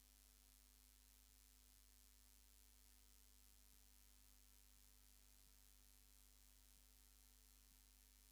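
Near silence: a faint steady electrical mains hum with hiss, and no sound from the locomotive.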